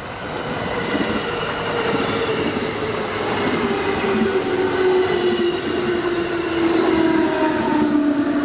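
JR West 221 series electric train rolling in over the rails. The whine of its traction motors slides steadily down in pitch as it brakes for the station.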